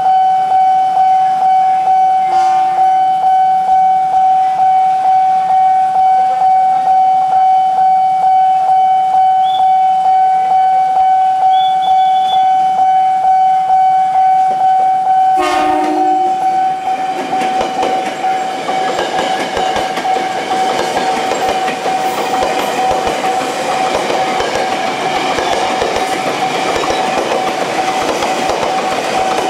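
Nippon Signal level-crossing alarm sounding its pulsing electronic tone without pause. A short train horn blast sounds about halfway through, then a Tokyo Metro 6000 series electric commuter train runs past the crossing with wheel clatter.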